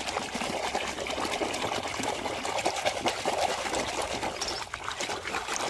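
Water trickling and splashing steadily as a muddy toy is washed by hand in water.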